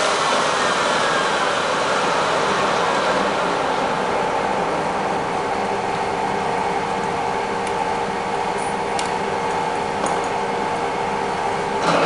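16K20 screw-cutting lathe running under power, its spindle and gearbox giving a steady whine at an unchanging pitch. A short clatter comes right at the end.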